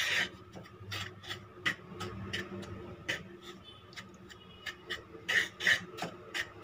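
Maida flour poured into ghee in a kadai, a brief rush at the start, then a wooden spatula scraping and stirring the flour around the pan in short, irregular strokes, a few of them louder in the second half.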